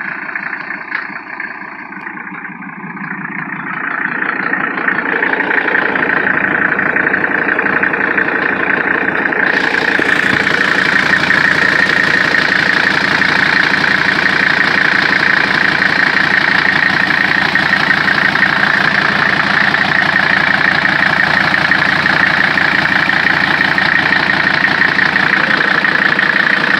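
Mercedes-Benz OM617 five-cylinder turbodiesel running with only a short pipe in place of the exhaust, a steady diesel clatter. It grows louder over the first ten seconds, then holds steady.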